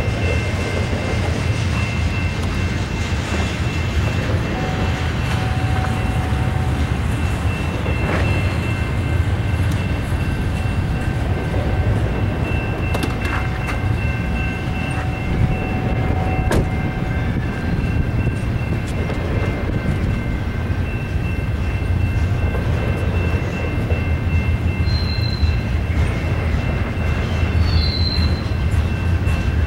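Double-stack intermodal freight train rolling past: a steady rumble of steel wheels on rail, with thin, high, steady wheel squeal over it and a few sharp clanks along the way.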